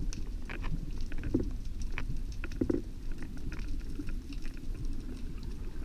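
Underwater ambience: irregular clicks and crackles, a few of them louder, over a steady low rumble.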